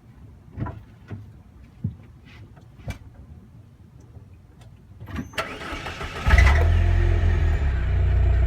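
Saab 9-3 being started: a few scattered clicks and knocks, then about five seconds in the starter cranks briefly, and the engine catches just after six seconds and settles into a steady idle.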